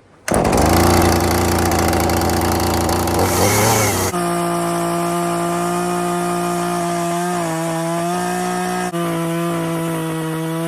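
Chainsaw cutting into a log, its note lower and rougher for the first four seconds, then running at a steady high pitch that dips briefly twice.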